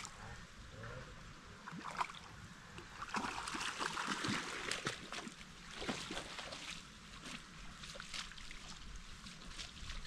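Water splashing and trickling in short irregular splashes as a hooked rainbow trout is played in close to the bank.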